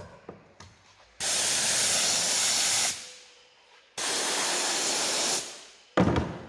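Compressed-air spray gun hissing in two long bursts as it sprays contact adhesive onto the foam of an armchair backrest, then a brief knock near the end as the gun is set down on the table.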